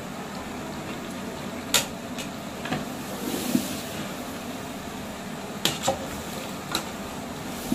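A long metal ladle stirring a thick mutton-and-potato curry in a large aluminium pot, knocking and scraping against the pot sides a handful of times, over a steady hiss.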